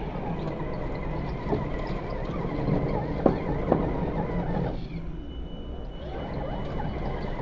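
Small electric motors and gearboxes of scale RC crawlers whining steadily as the trucks creep over sand and rock. A few sharp clicks come near the middle.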